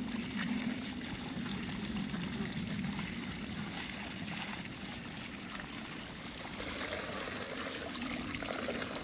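Steady trickling of flowing water, with a faint low hum in the first few seconds and again near the end.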